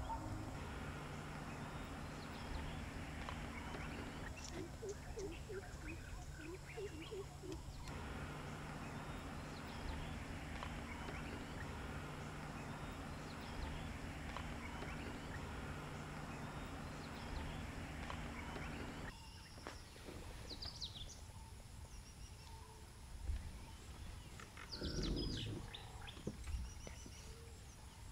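Outdoor ambience: a steady low hum, with a constant low tone, stops abruptly about two-thirds of the way through. Birds then chirp in short high calls, twice, with a few low thumps near the end.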